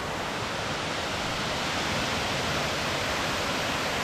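Waterfall running strongly: a steady, even rush of falling water, running high after overnight rain.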